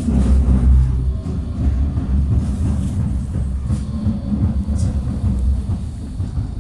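Tram running along the track, heard from inside the passenger car: a steady, loud low rumble from the wheels and running gear, with a few faint clicks and rattles.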